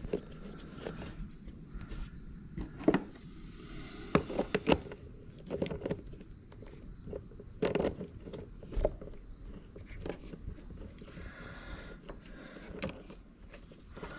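Scattered light clicks, taps and knocks of hand tools and small parts being handled during wiring work, a few of them louder, over a faint steady high-pitched tone.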